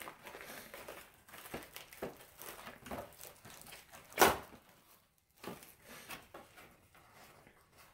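Plastic wrap crinkling and tearing as it is peeled off a foam tray of ground turkey, with one loud sharp crackle about four seconds in.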